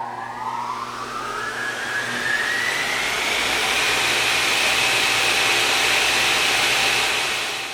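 A machine motor spinning up. A whine rises in pitch over about three seconds over a rushing noise, then holds steady at full speed.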